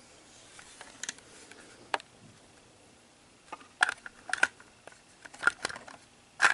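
Sharp plastic clicks and clacks from a Lego brick pistol being handled, a few faint ones early on, then a run of louder clicks in small clusters in the second half.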